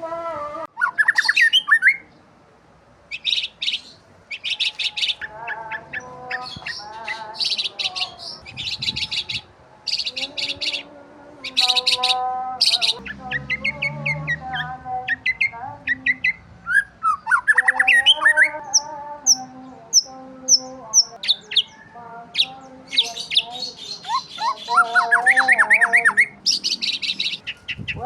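Several birds chirping and singing: quick high chirps and trills in rapid series, a run of short high whistled notes around the middle, and lower warbling calls in between.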